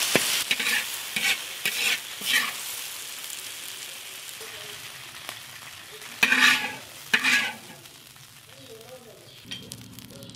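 Stir-fry sizzling in a wok while a spatula scrapes and tosses the food in quick strokes, the final stirring before it is dished up. The sizzle fades as it goes, with two louder scrapes about six and seven seconds in.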